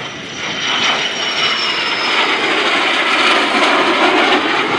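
MiG-17 jet fighter's turbojet engine in a low pass, its noise growing loud over the first two seconds and staying loud. A high whine falls slowly in pitch as the jet passes.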